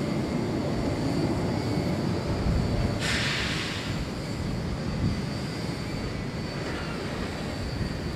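Jet airliner engines giving a steady low rumble during a takeoff or landing run, with a brief hiss about three seconds in.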